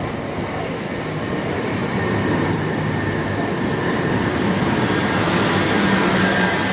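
A train running along the platform at a railway station, growing louder, its rumble and hiss carrying a steady high whine and a lower hum.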